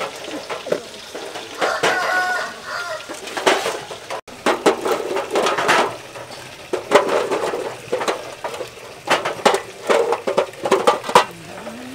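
Duck eggs clicking and knocking against each other, the plastic egg trays and a metal platter as they are picked up and set down by hand, many small clicks in quick runs. A chicken calls briefly about two seconds in.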